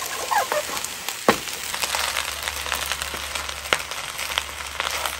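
Cooked rice sizzling as it drops into hot oil and fried garlic in a wok, then stirred with a wooden spatula that scrapes and clicks against the pan. A sharp knock about a second in.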